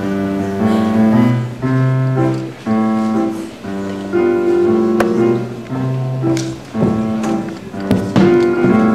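Piano music: a melody of held notes over chords, moving in steady steps of about half a second to a second each.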